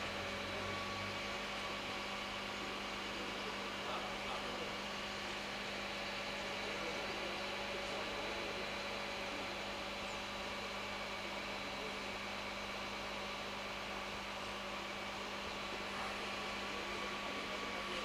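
Steady machine hum with a constant low tone, like an engine or motor idling, holding level throughout.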